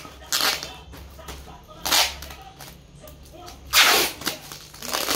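Clear packing tape pulled off its roll in three quick noisy rips, the last one, near the end, the loudest and longest.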